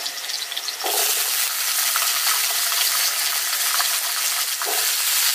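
Wet raw potato pieces dropped by hand into hot ghee in a steel kadhai, sizzling hard as the water hits the fat. The sizzle surges about a second in as more pieces go in.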